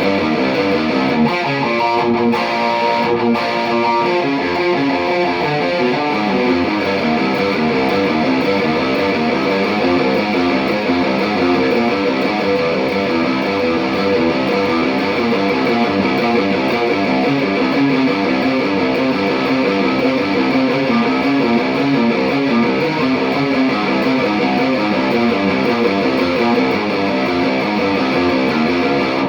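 Electric guitar played through a Mesa/Boogie Mark V:25 amplifier, a continuous run of fast, rhythmic riffing notes at a steady loud level.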